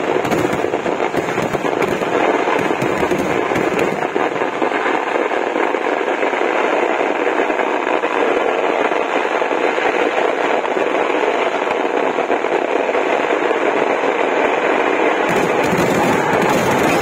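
Kerala temple-festival fireworks (vedikettu), a barrage of firecracker bangs so rapid that they run together into one continuous crackle. A deeper booming comes in near the end.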